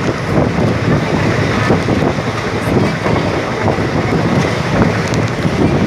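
Express train running at speed, heard from an open coach doorway: wind rushing over the microphone over the steady rumble of the coach's wheels on the rails.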